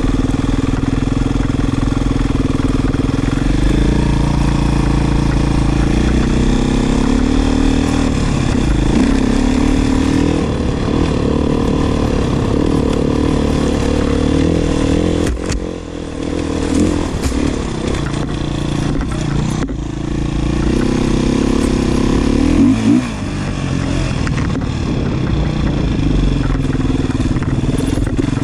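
Beta 500RR dirt bike's single-cylinder four-stroke engine running under way, its pitch climbing and falling repeatedly as the throttle is worked and gears change. It eases off briefly about halfway through, then picks up again.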